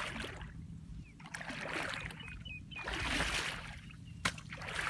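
A hoe chopping into and scooping wet paddy mud and water, in repeated wet strokes about a second and a half apart, with a sharp knock about four seconds in.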